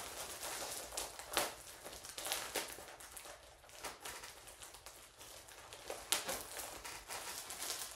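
Packaging crinkling and rustling as a mail-order package is opened and unwrapped by hand, in irregular bursts, with a louder rustle about a second and a half in and another about six seconds in.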